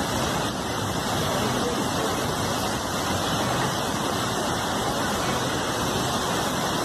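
Muddy river in flood rushing and churning in torrents, a steady rush of heavy water with no breaks.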